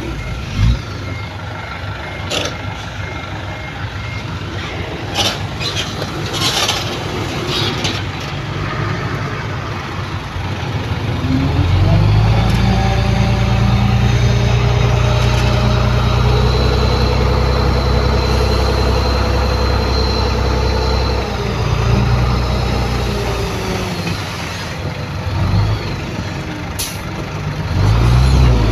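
Heavy diesel construction machinery running. About twelve seconds in, one engine loads up into a loud steady drone, which eases off around twenty-one seconds. A few brief sharp noises come between two and seven seconds in and once near the end.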